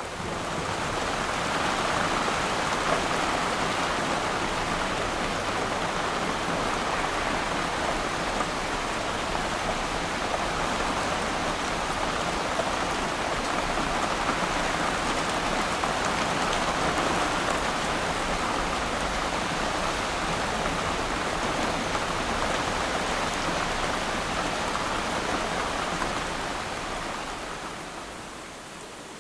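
Steady rain falling on water, a dense even hiss of drops. It swells over the first couple of seconds and fades down near the end.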